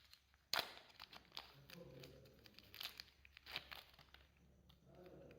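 Pink and purple clay slime being worked by hand, crackling and crinkling as it is stretched and pressed, with a sharp crackle about half a second in and more around three seconds in.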